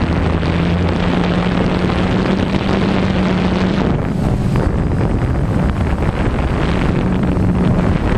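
Steady hum of a small camera drone's propellers with wind rushing over the microphone; the hum wavers and drops out around four seconds in, then settles again near the end.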